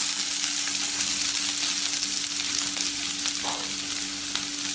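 Chopped onions sizzling steadily in hot oil in a stainless steel kadai, freshly added to oil with spluttered mustard seeds and cumin. A steady low hum runs underneath.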